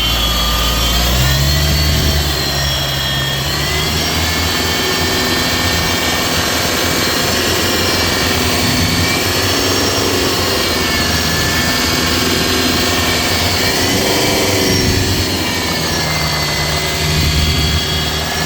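Mitsubishi Montero Gen 3 engine running with a loud humming drone from the belt-driven accessories, with several whining tones drifting slowly up and down in pitch over a steady low rumble. The noise is traced to a failing alternator pulley with play in it.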